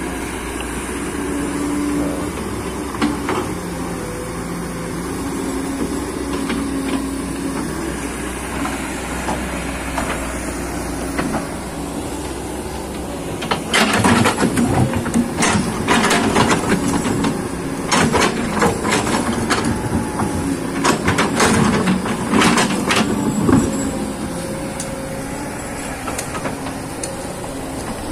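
Hydraulic excavator's diesel engine running steadily. About halfway through comes a long run of loud knocks and scrapes, the bucket working rocky soil, before the engine settles back to a steady run.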